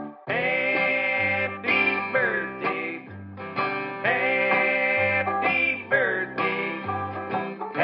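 Background music: a guitar-led instrumental with sliding notes over a bass line.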